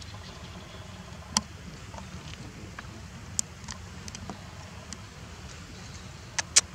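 A few sharp clicks over a steady low rumble: one about a second and a half in, a pair around three and a half seconds in, and a quick run of several near the end.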